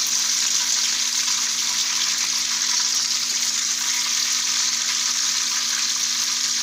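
Chicken pieces frying in hot cooking oil in a wok: a steady, dense sizzle that holds even throughout.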